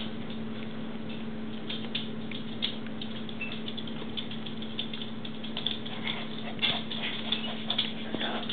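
Paws of one-month-old Yorkshire terrier mix puppies pattering and crinkling on plastic-backed puppy training pads as they play, busier after about five and a half seconds. A steady low hum runs underneath.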